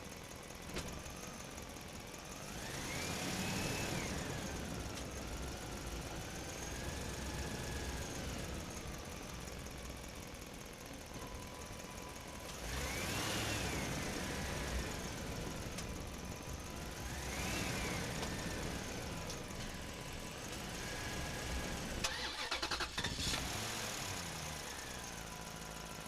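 Animated vehicle engine sound effects: an engine running steadily and revving up and back down four times, with a short rattle of quick clicks near the end.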